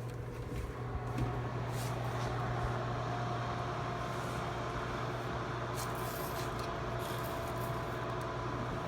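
Steady hum of a kitchen oven running, with a few light clicks and clatters as the foil-wrapped banana is lifted out.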